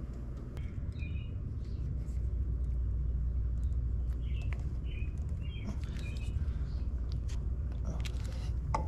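Steady low rumble with a few short, high bird chirps over it, about a second in and again a little after the middle.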